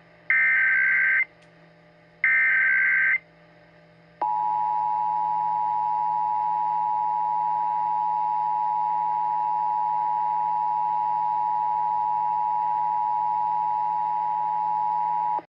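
Emergency Alert System tones for a required monthly test. First come the last two of the three SAME header data bursts, each about a second long and a second apart. Then the steady two-tone EAS attention signal (853 and 960 Hz) sounds for about eleven seconds and cuts off suddenly.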